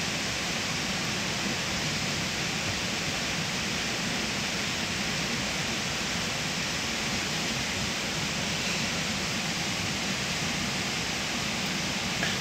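Steady rush of flowing stream water, an even noise that holds constant throughout.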